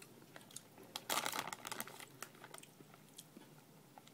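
Faint, scattered wet clicks and crackles of someone chewing a soft jelly baby, with a denser patch of them about a second in.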